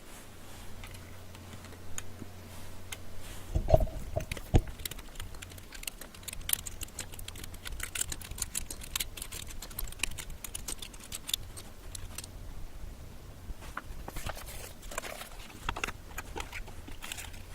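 Typing on a Clueboard mechanical keyboard with jailhoused Cherry MX Blue switches: a spacer fills the click jacket, so the keys give a tactile clack without the usual click. Runs of quick keystrokes with a brief pause about two-thirds of the way in, and a few louder low thuds about four seconds in.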